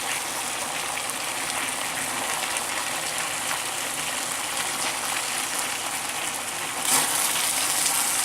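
Chicken, green beans and ramen noodles sizzling in a hot wok on a sear setting: a steady frying hiss full of fine crackles, growing louder about seven seconds in.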